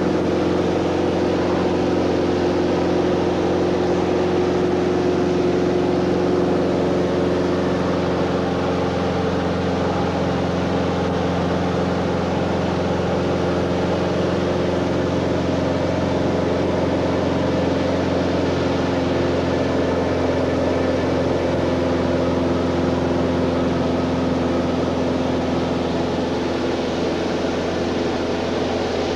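Light aircraft's piston engine and propeller droning steadily, heard from inside the cabin in cruise flight.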